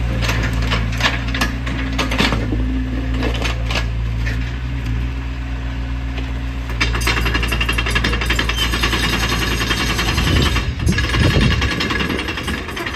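Sany SY60C mini excavator's diesel engine running under hydraulic load, with sharp metallic clanks as the boom and bucket press down and lift the machine. From about seven seconds in, a fast, continuous metallic rattle of the raised steel tracks joins the engine.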